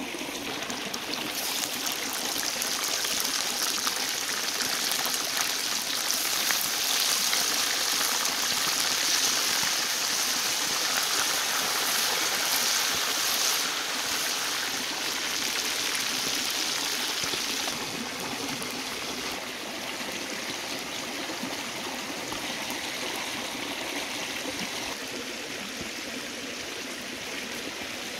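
Frogs deep-frying in hot oil in a wok: a steady sizzling hiss that grows louder about a second and a half in and eases somewhat after about eighteen seconds.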